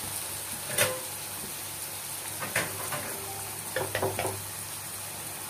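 Spice paste and chili frying in hot oil in a non-stick pan, sizzling steadily while a metal spoon stirs it. A few sharp clicks and scrapes of the spoon against the pan come about a second in, near the middle, and in a quick cluster later on.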